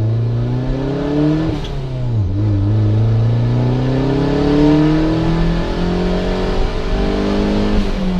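Turbocharged 1.8-litre four-cylinder engine of a 1994 Mazda Miata accelerating. Its pitch rises, drops at a gear change about two seconds in, then climbs smoothly through a long pull, with another drop near the end. At quarter throttle it pulls through without the misfire or hard cut it shows at half throttle.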